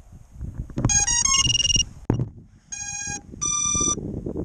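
Electronic beeping from an FPV quadcopter: a quick run of short stepped tones about a second in, then two longer beeps, the second higher, over a low rumble.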